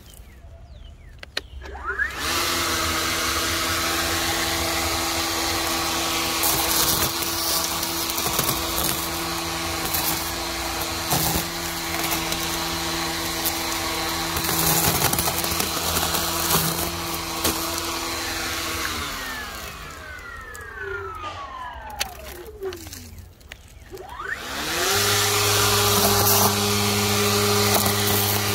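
Ryobi 40V HP brushless string trimmer, its motor mounted directly at the string head, spinning up about two seconds in and running with a steady whine as it cuts dry grass and weeds, with a few brief ticks. Near two-thirds of the way through it winds down with a falling pitch, then spins up again to a steady, slightly higher whine.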